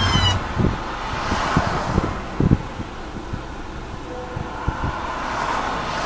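A vehicle siren winding down in pitch and cutting off just after the start, then wind on the microphone and passing freeway traffic, with a few dull knocks.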